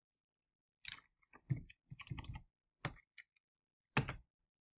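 Typing on a computer keyboard: faint key taps in several short runs with pauses between them.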